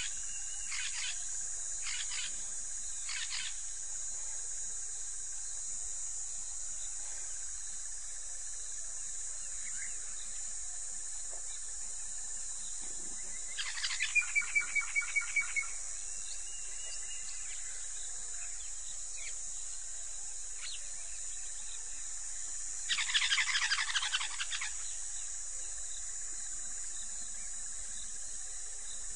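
A steady, high-pitched drone of insects, with a few short animal calls in the first few seconds. Two louder, rapid trilled calls follow, one about halfway through and one about three quarters of the way in.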